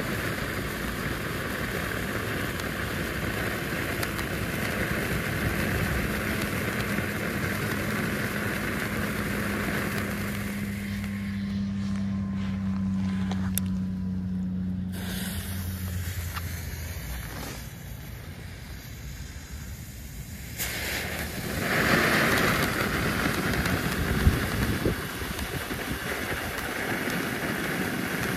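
Small Weco ground firework fountains burning with a steady rushing hiss of sparks. The first dies away about ten seconds in, and after a quieter gap a fresh fountain starts hissing louder about 21 seconds in, with one sharp crack a few seconds later.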